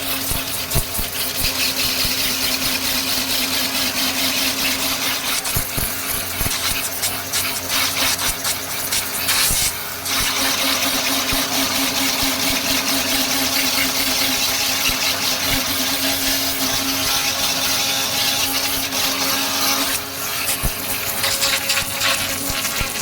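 Electric pressure washer running, its motor humming under a steady hiss of spraying water, with brief dips about ten and twenty seconds in.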